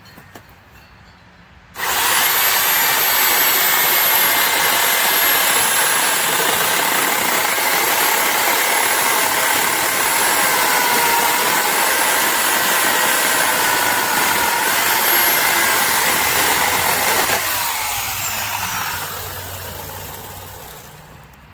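Corded electric chainsaw switched on at full speed, running steadily for about fifteen seconds, then released and winding down with a falling whine.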